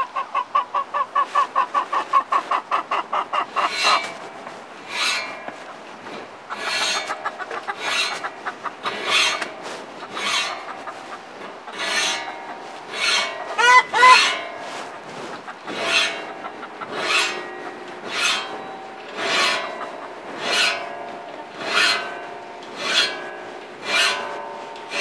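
Hand saw file drawn across a saw's teeth in a metal saw vise, about one stroke a second. Each stroke is a rasp with a ringing tone from the saw plate, as the tooth tips dulled by setting are resharpened. A chicken clucks rapidly in the first few seconds and calls again about midway.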